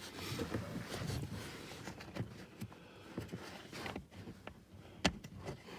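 Faint handling noises as a hand works a small screw and tool up under the dashboard: rustling and light scattered clicks, with one sharper click about five seconds in.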